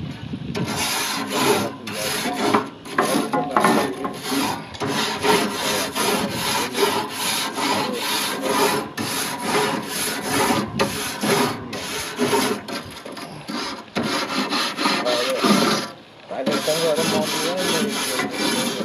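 Wire grill brush scrubbing the metal grates of a lit gas grill in quick back-and-forth strokes, about two to three a second, with a brief pause about sixteen seconds in.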